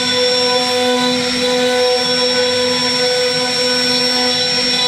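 CNC router spindle running at speed while its bit carves a wooden door panel: a steady whine at several fixed pitches over the hiss of the cut.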